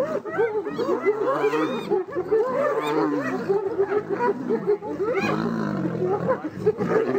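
Lions and hyenas fighting: many overlapping growls and short rising-and-falling calls from several animals at once, continuous with no break.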